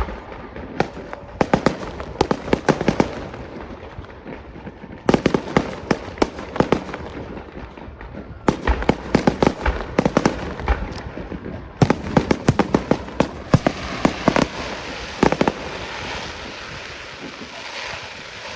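Ceremonial salute fireworks going off in rapid volleys of sharp bangs and crackles, in four bursts separated by short gaps. The bangs stop about three seconds before the end, leaving a steady background noise.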